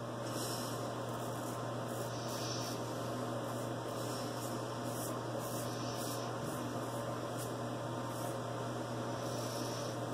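Faint, intermittent scratching of a vintage Frederick Reynolds straight razor cutting through lathered stubble, over a steady low electrical hum.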